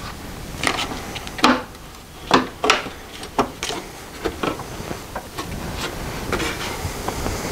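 The top cover of a Toro S-200 snowblower being pushed and worked into place by hand: irregular knocks, clicks and scraping as it seats against the machine.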